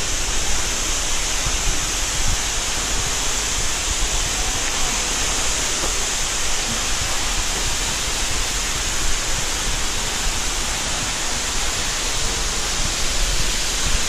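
Tall, narrow rainforest waterfall plunging and spraying onto rocks close by, a steady, even rush of falling water.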